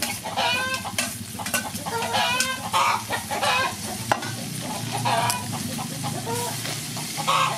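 Metal spatula stirring and scraping chicken gizzards and basil around a sizzling wok, with sharp clinks of the spatula on the pan, one louder about four seconds in. Chickens cluck repeatedly.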